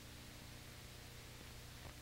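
Near silence: a steady low hum and hiss from an old videotape transfer, with two faint clicks in the second half.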